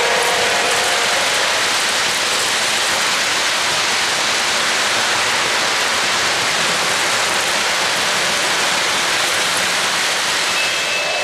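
Steady rushing roar of an O-gauge model train's metal wheels rolling on three-rail track as a string of freight cars passes close by. A horn tone fades out in the first second.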